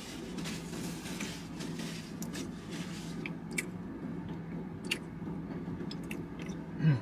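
Paper napkin rustling as hands and mouth are wiped while eating, mostly in the first three seconds, then a few faint sharp clicks, over a steady low hum.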